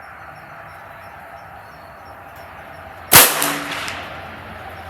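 A single shot from a Ruger Precision Rimfire .22 LR rifle, fired with SK Standard Plus ammunition, about three seconds in: one sharp crack with a short echoing tail.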